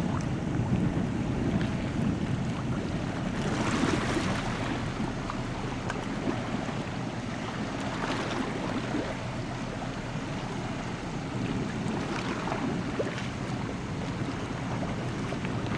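Car ferry under way across the water: a low, steady engine hum mixed with wind on the microphone and the wash of waves. The hiss swells a few times.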